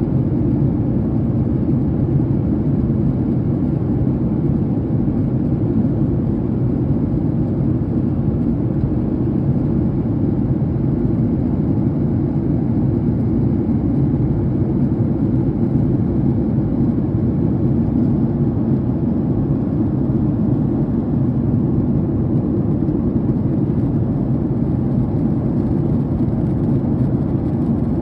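Airliner cabin noise in flight: a steady low drone of engines and airflow, heard from a window seat inside the passenger cabin.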